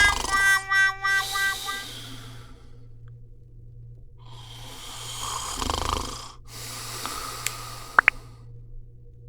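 A cat snoring: two long, noisy breaths, the first starting about four seconds in and the second right after it. A few tonal notes fade out in the first two seconds, and a steady low hum runs underneath.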